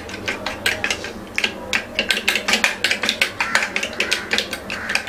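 Steel spoon beating egg mixture in a small stainless-steel bowl: rapid clinking and tapping of spoon against bowl, several strokes a second. The egg is being whisked until frothy so that it cooks up soft.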